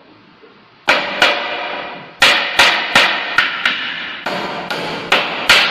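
Claw hammer striking a wooden stair tread: about a dozen sharp blows in quick runs, starting about a second in, each followed by a brief ringing.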